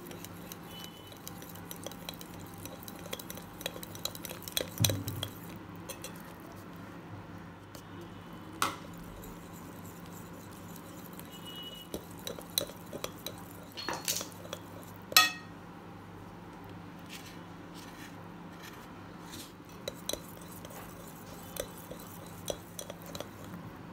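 Metal wire whisk stirring flour into a wet dough mixture in a glass bowl, with scattered clinks and taps of the wires against the glass. The sharpest tap comes about 15 seconds in, over a low steady hum.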